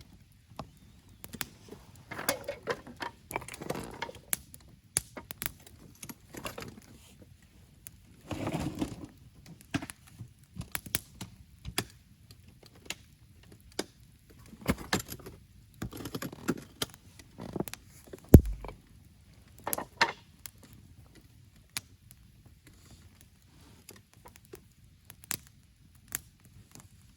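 Camp gear being handled by hand: irregular clinks and knocks with bouts of rustling, and one heavy thump about 18 seconds in.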